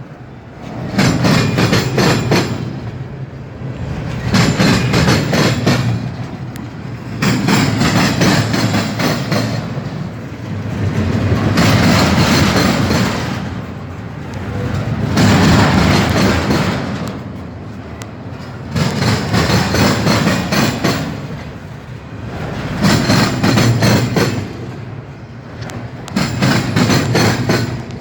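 Loud, distorted horn blasts, repeated about nine times, each lasting two to three seconds with short breaks between.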